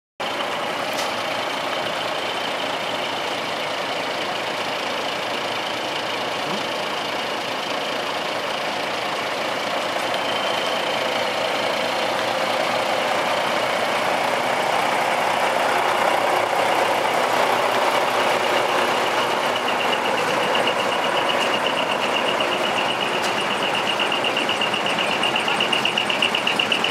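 Parked trucks' diesel engines idling, a steady mechanical noise, with a fast high-pitched pulsing tone that grows louder over the last few seconds.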